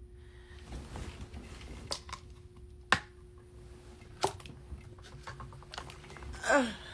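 Rustling and handling noises with a few sharp clicks, one louder snap about three seconds in, over a low steady hum, and a short wordless vocal sound near the end.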